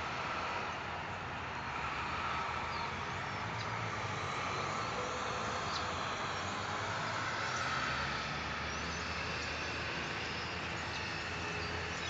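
Steady rumble of road traffic with scattered short, high chirps from a large flock of birds, which the uploader takes for starlings.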